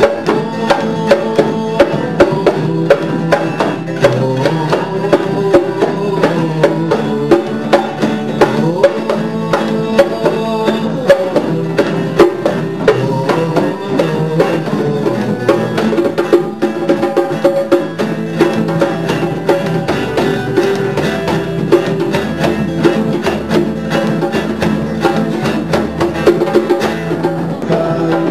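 Guitar and drum music with a steady beat.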